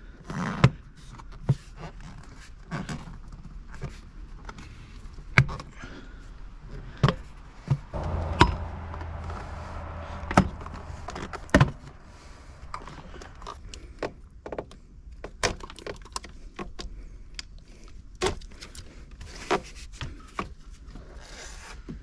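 Plastic interior trim of a Honda S2000's center console clicking, knocking and scraping as it is pried up by hand and its retaining tabs pop loose. Sharp clicks and knocks come irregularly throughout.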